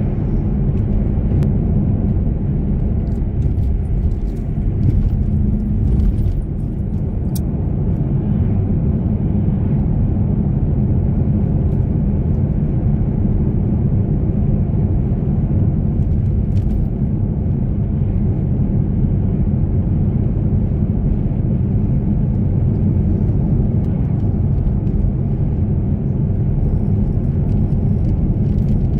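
Steady low rumble of a car driving at highway speed, tyre and engine noise heard from inside the cabin, with a few faint ticks in the first several seconds.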